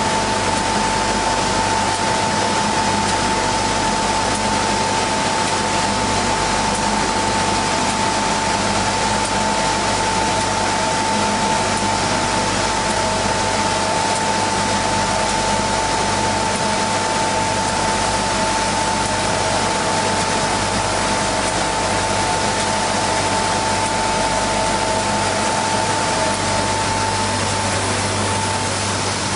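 Industrial conveyor-fed sanding machine running steadily while sanding a poplar wood snowboard core: a loud, even rush of machine noise with a low hum and a steady high whine that drops out near the end.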